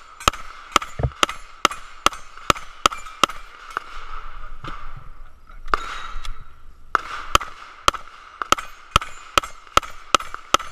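Rapid pistol fire, about two shots a second, at steel plate targets that ring after each hit. The string breaks off for a second or so past the middle, then picks up again at the same pace.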